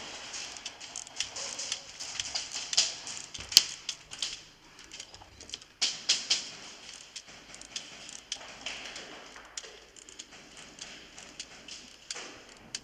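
Airsoft guns firing in scattered single shots and short bursts, heard as irregular sharp clicks and rattles, with one louder crack about three and a half seconds in.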